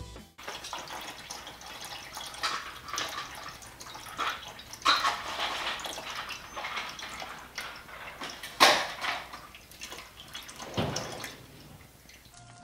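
Engine coolant draining out of an LT1 V8's cooling system, liquid splashing and dripping unevenly, with a few louder splashes.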